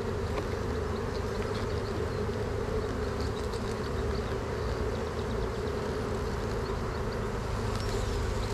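Many honeybees buzzing over an opened hive, one steady, even hum.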